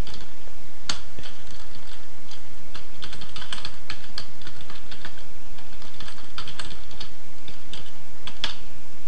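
Typing on a computer keyboard: irregular key clicks, with a quicker run of keystrokes in the middle.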